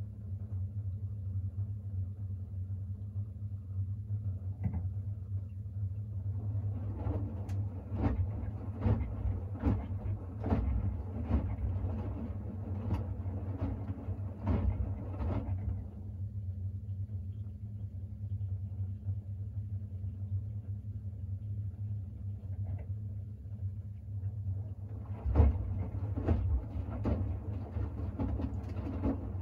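Siemens iQ700 front-loading washing machine in its main wash, tumbling wet shirts: a steady low hum, with the wet laundry and water splashing in a regular rhythm, about three every two seconds, while the drum turns for some nine seconds, then a pause of the same length, and the drum turns again near the end.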